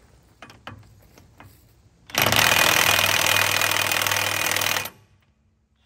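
A few light metal clicks as a socket is seated on a lug nut, then an impact wrench hammering hard for about three seconds and cutting off abruptly, working to loosen a stuck truck lug nut.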